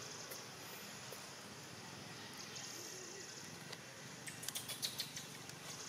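Outdoor forest ambience: a steady high-pitched insect drone that starts and stops, with a quick run of clicks and rustles about four and a half seconds in.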